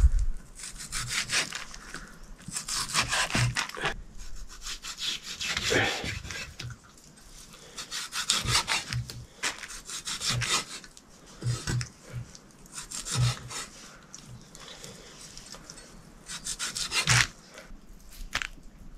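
Pork being cut with a blade in irregular back-and-forth rasping strokes, like sawing, with small knocks between the strokes.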